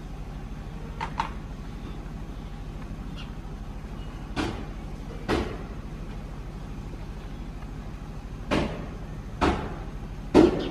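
A steady low mechanical hum, broken by a handful of sharp clicks or knocks, several coming in pairs about a second apart; the loudest click is near the end.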